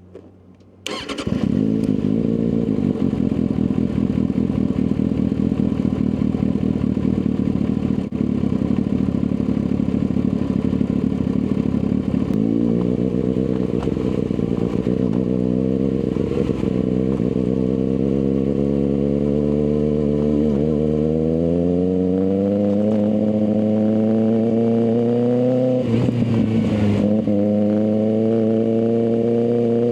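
Kawasaki ZX-6R inline-four motorcycle engine with an M4 aftermarket exhaust, coming in suddenly about a second in and running loud. From about 12 s its pitch climbs slowly and steadily, dips briefly near 26 s as at a gear change, then climbs again.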